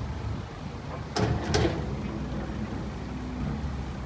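Excavator's diesel engine running steadily, with two loud clanks a moment apart about a second in.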